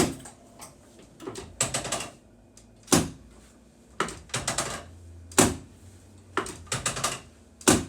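Sharp clicks and knocks from a chiropractic adjustment of the lower back and pelvis, some single and some in quick runs of three or four.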